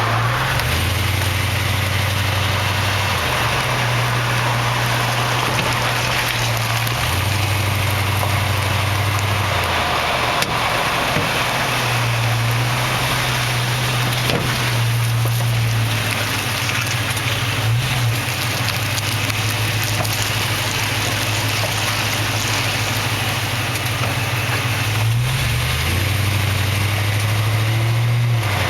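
2004 Toyota Tundra rolling slowly with a steady low drivetrain hum, broken by a few sharp clunks from the rear end, about ten seconds in and again at around fourteen and eighteen seconds. This is the known Tundra rear-end clunk or popping, set off as the body's weight shifts side to side while turning over uneven ground; the owner does not yet know its cause.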